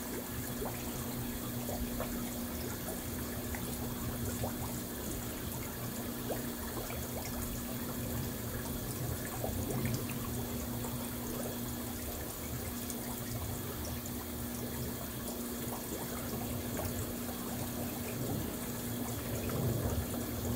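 Water in a small tub pond churning and splashing steadily as strong circulation keeps marimo moss balls tumbling. A steady low hum runs underneath.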